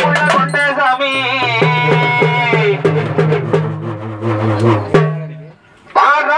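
Urumi melam drum ensemble playing: the urumi hourglass drums give a sliding, wavering pitch over steady beats from the barrel drums. The playing drops out briefly about five and a half seconds in and then starts again.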